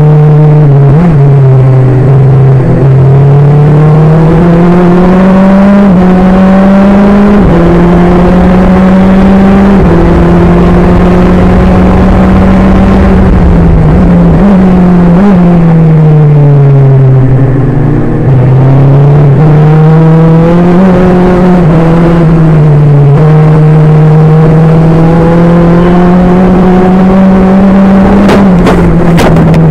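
A March 783 Formula 3 car's Toyota Novamotor four-cylinder racing engine heard onboard at speed, climbing in pitch through the gears with a sudden drop at each gear change and falling away under braking before picking up again. A few sharp knocks come near the end.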